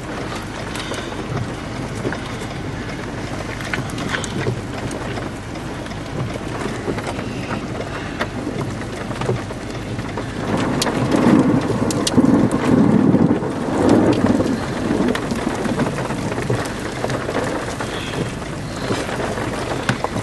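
Steady rain from a supercell thunderstorm, with a louder stretch of low rumbling about halfway through.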